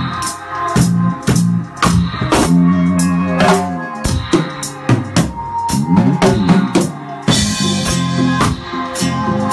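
Drum kit playing a reggae one drop rhythm along with a reggae track and its bass line: even hi-hat strokes with snare rimshots and kick drum. A cymbal crash comes in about seven seconds in.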